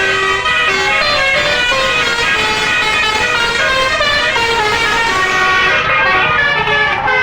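Bus telolet basuri musical air horn playing a tune: a run of sustained horn notes that step quickly from pitch to pitch, with a low rumble underneath.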